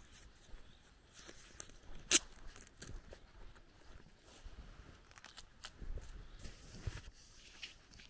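Footsteps and rustling on a grassy dirt path: scattered soft crunches and short clicks, with one sharp, loud snap about two seconds in.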